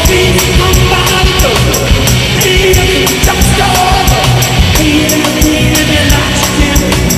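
Funk-rock music: an electric guitar is strummed over a steady drum beat, with long held melodic notes above it.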